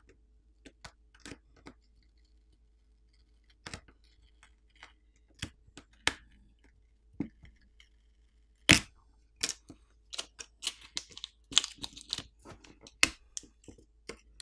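Realme GT2 Pro's charging-port flex cable being peeled off its adhesive on the metal midframe: sharp clicks and small crackles, scattered at first and coming thick and fast in the second half.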